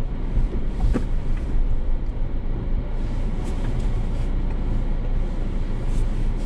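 Ford Bronco engine running at low revs as it crawls an off-road trail, a steady low rumble with a couple of faint knocks.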